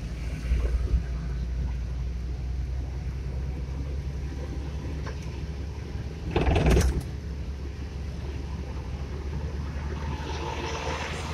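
Steady low engine and road rumble heard from inside a moving car, with a brief, louder rush of noise about six and a half seconds in.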